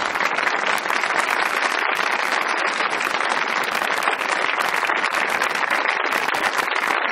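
Studio audience applauding steadily, a dense wash of many hands clapping.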